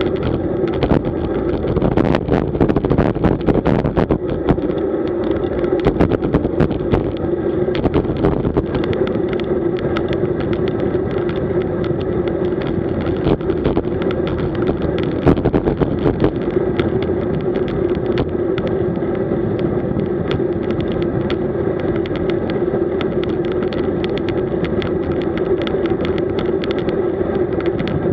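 Steady wind and road noise from a road bike riding at about 35 km/h, buffeting the bike-mounted camera's microphone, with scattered crackles and knocks in the first several seconds and again about halfway through.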